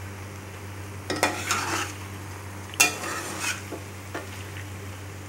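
A spoon stirring and scooping cooked macaroni in a metal pan, with a few short scrapes and knocks against the pan, the loudest about three seconds in. Faint sizzling from the pan continues underneath.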